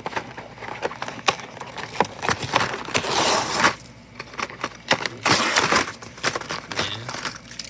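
A cardboard box being handled and torn open, with two longer ripping tears about three and five seconds in, amid many small clicks and knocks of the packaging and the toys inside.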